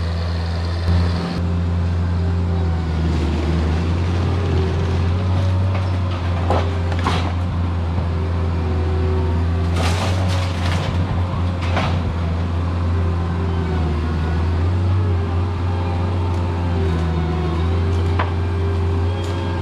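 Vermeer mini skid steer's engine running steadily, its pitch shifting a couple of times as the machine works, with several sharp cracks and knocks of deck timber being pulled apart.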